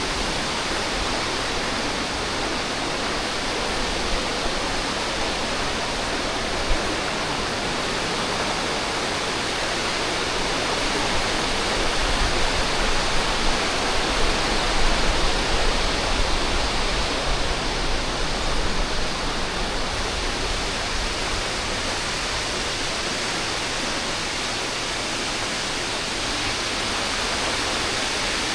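Waterfall rushing steadily. A low rumble joins it, and the level rises slightly, for several seconds near the middle.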